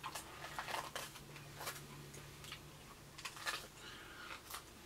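A person chewing crunchy raw vegetables, with irregular soft crunches and mouth clicks.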